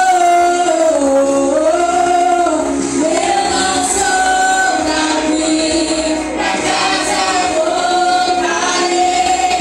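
A worship group singing a gospel song, led by female voices with others joining, holding long notes that glide from one pitch to the next.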